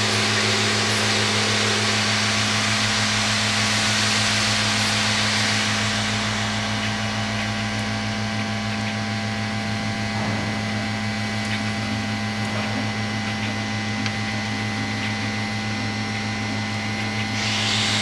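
Automatic cartridge tube plugging machine running: a steady low hum under a loud, even hiss. The hiss eases about six seconds in and comes back up near the end.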